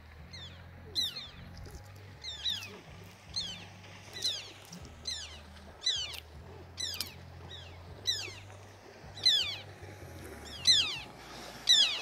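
A bird calling over and over, a short sharp note sliding steeply down in pitch about once a second.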